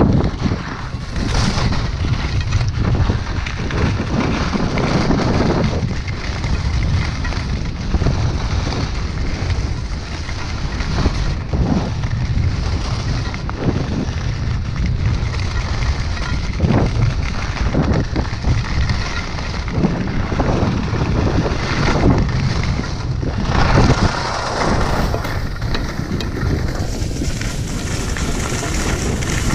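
Wind rushing and buffeting over an action camera's microphone while skiing down a groomed snow run, mixed with the scrape of edges over packed snow that swells now and then as the turns bite.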